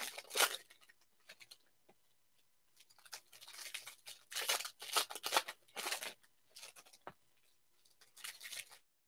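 A foil pack of 2018 Prestige football cards being torn open and crinkled, in several short bursts of rustling and tearing, the longest from about three to six seconds in.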